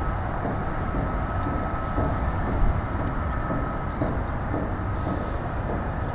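McDonnell Douglas MD-83's two rear-mounted Pratt & Whitney JT8D turbofans running at taxi power: a steady low rumble with a faint thin whine above it.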